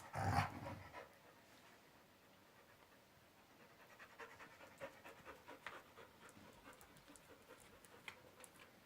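A dog panting faintly, after a short louder sound right at the start.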